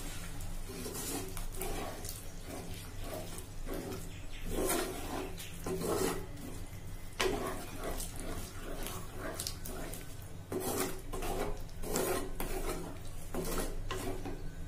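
Wooden spatula stirring and scraping boiled taro pieces through thick, wet masala in a heavy black cooking pot, in a run of irregular rasping strokes.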